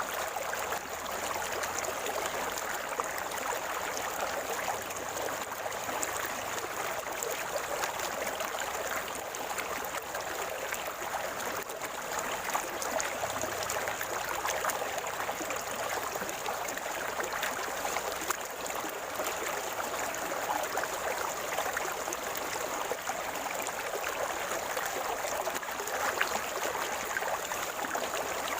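River water flowing and gurgling, a steady even rush.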